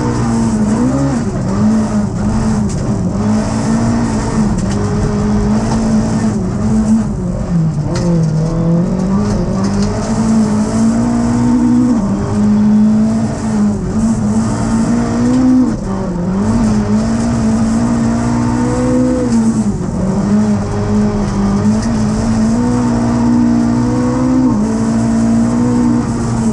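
Inside a Volkswagen Golf Mk3 Group H rally car at speed on gravel: the engine runs hard, its pitch dipping and climbing again several times. Steady tyre and gravel noise runs underneath.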